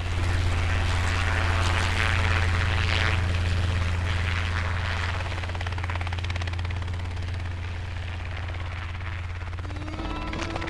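Helicopter flying overhead, its rotor chopping in a rapid steady beat with a low engine drone, slowly fading as it flies away.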